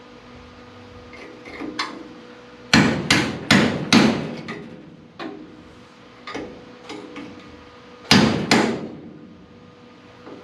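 Hammer blows on the steel remains of an old car-door hinge on a 1941 Lincoln Zephyr body, working the metal loose before grinding. A few light taps, then a quick run of four hard strikes, some scattered lighter hits, and two more hard strikes later on.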